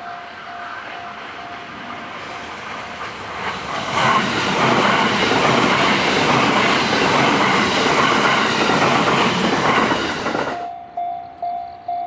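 Level-crossing warning bell ringing about twice a second. From about two seconds in, a JR West electric commuter train passes, a loud, steady rushing that drowns the bell. It cuts off abruptly near the end, and the bell is heard ringing again.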